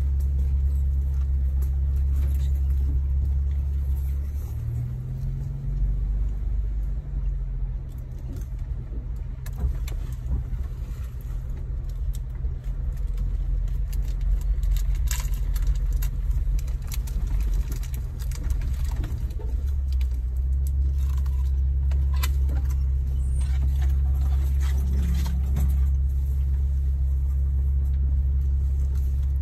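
Jeep Wrangler Rubicon driving slowly on a rough dirt trail, its engine a steady low drone heard from inside the vehicle. The engine note rises about five seconds in and runs unevenly for a while after. Light rattles and clicks come through as it bumps along.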